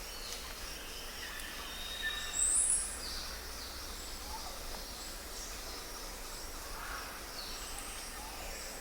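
Nature ambience: a steady hiss with scattered bird chirps, and one loud, high-pitched call about two and a half seconds in.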